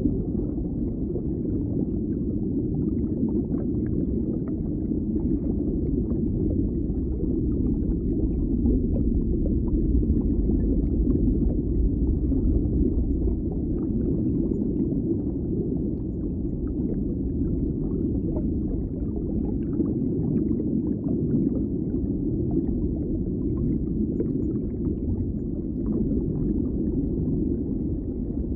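Steady, low, dull rumbling background ambience with faint scattered ticks, with no clear single source.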